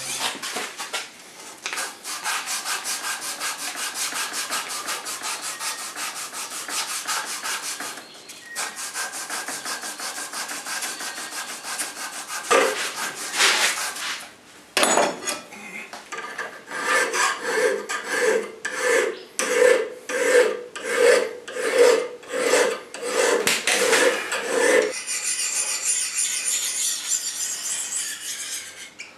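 Hand file scraping along a clamped steel dagger blade: fast, continuous rasping strokes in the first half, then slower separate strokes about one and a half a second, each with a ringing tone from the blade. Near the end the strokes stop and give way to a quieter hiss.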